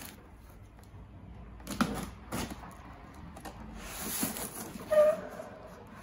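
A cardboard box being handled and its lid flap opened on a wooden table: a few dull knocks and some rustling, with a sharper knock about five seconds in.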